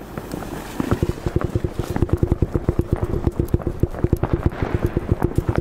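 A firework burning on the ground with a rapid, even train of sharp crackling pops, about eight a second, starting about a second in.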